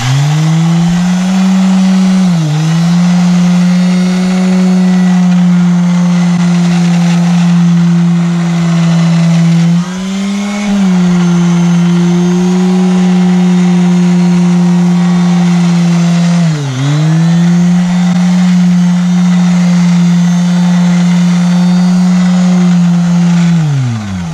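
Small corded electric sander, fitted with a rubber pad and a cloth wetted with surgical spirit, running steadily while it rubs sticky sticker adhesive off a caravan's side panel. Its hum dips briefly in pitch a few times and falls away as it stops at the end.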